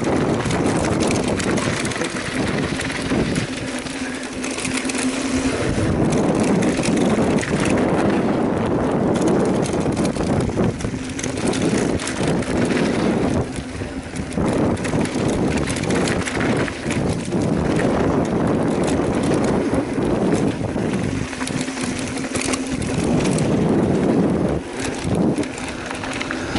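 Mountain bike riding fast down a dirt trail: tyres crunching over dirt and rocks, the bike rattling over bumps, and wind buffeting the microphone. A low steady buzz comes and goes twice.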